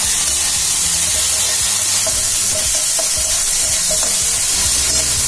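Chopped onions and ginger-garlic-cumin paste sizzling steadily in hot oil in a kadhai, stirred with a metal spatula that scrapes the pan.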